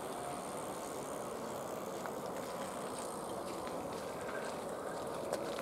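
Steady noise of a distant twin-engine jet airliner's engines at idle as it taxis.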